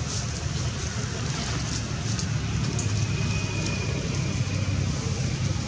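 Steady low rumble with an even hiss over it, like wind or far-off traffic, and a faint thin high tone for about a second midway.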